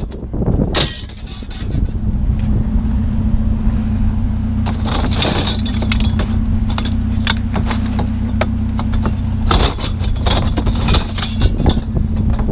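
A vehicle engine idling with a steady low hum, while metal canopy-frame tubes clank and rattle as they are handled and broken apart, in clusters of sharp clinks.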